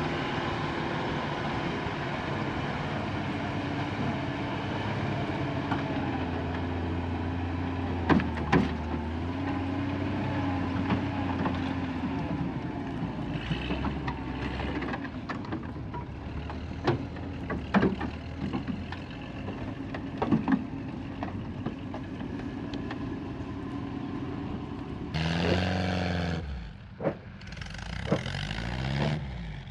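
A tracked snow vehicle's engine running steadily, with scattered sharp knocks and clanks. Near the end the engine note grows louder and its pitch swoops down and up a few times.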